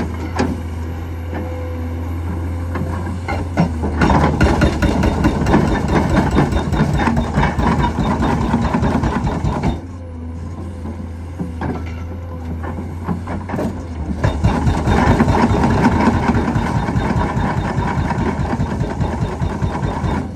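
Cat 385C excavator's diesel engine running steadily while its hydraulic hammer pounds the ground in rapid blows. The hammering starts about four seconds in, stops near the middle, and starts again about fourteen seconds in, running to the end.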